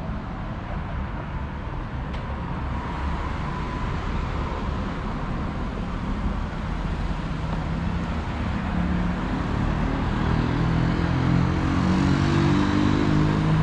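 Road traffic noise from cars passing on the road, growing louder through the clip; from about two-thirds of the way in, a vehicle's low engine sound builds as it approaches.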